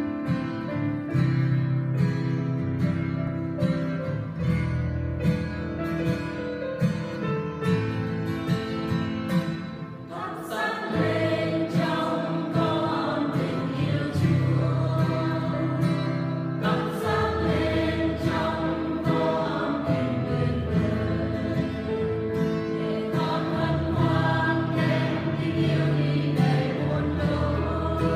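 A church choir singing a Vietnamese Catholic hymn with instrumental accompaniment. The music shifts to a fuller sound about ten seconds in.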